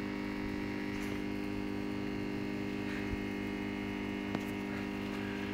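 A steady hum of several held tones, with a faint quick pulsing beneath it, and one faint click about four seconds in.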